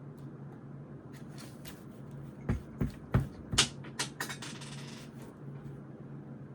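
Five quick knocks on a desk, one after another over about a second and a half, amid rustling of paper from studying at a desk, over a steady low hum.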